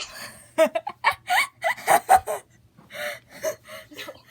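A person laughing in a series of short bursts, loudest in the first half.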